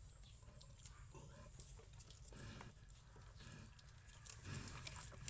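Pigs grunting softly in short, repeated grunts, with light clicks and rustling that grow a little louder near the end.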